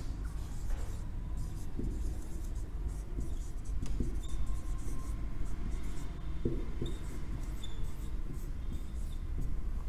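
Marker pen writing on a whiteboard: soft scratching strokes with a few brief high squeaks.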